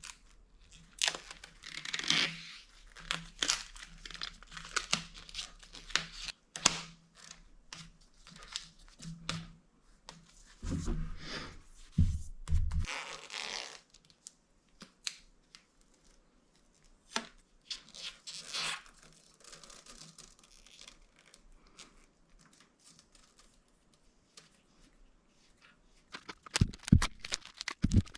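Handlebar tape being wrapped on a road bike: short irregular tearing and peeling sounds with crinkling and small clicks, as the tape and its adhesive backing are pulled and stretched around the bar.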